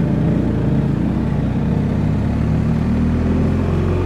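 BMW R1250 motorcycle's boxer-twin engine running at low town speed, its note rising a little about halfway through as the bike pulls away along the street.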